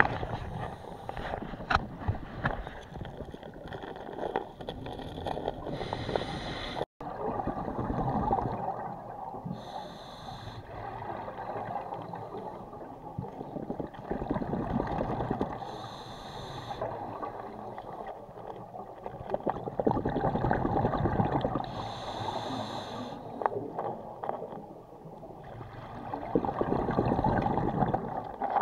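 Scuba diver breathing through a regulator underwater: a short hissing inhale about every five to six seconds, each followed by a long gurgling rush of exhaled bubbles.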